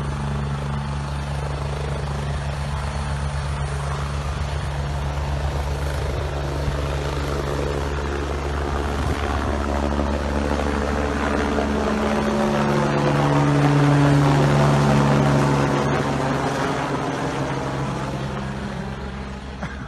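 Helicopter flying overhead, a steady rotor and engine drone that grows louder to a peak about two-thirds of the way through, then fades.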